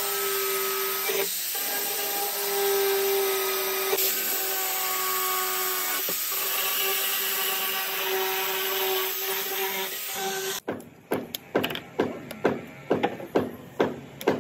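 Handheld electric drill running steadily, its hole saw cutting through the plastic wall of a water tank, with a steady motor whine over the cutting noise; it cuts off abruptly about ten and a half seconds in. A different rhythmic sound follows: short sharp strokes, about two or three a second.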